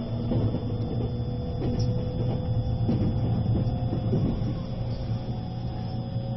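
Cabin running noise of a JR East E653 series electric train: a steady low rumble with a faint whine that rises slightly near the end, and a few light clicks from the wheels over the rails.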